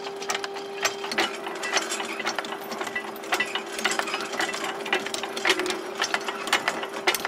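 Boat's anchor windlass hauling in the anchor: rapid, irregular clicking and clanking of chain over a steady motor hum.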